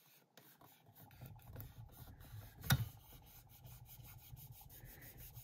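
Fingers rubbing and pressing transfer tape and vinyl onto a metal water bottle: a faint, uneven scuffing. One sharp tap about two and a half seconds in.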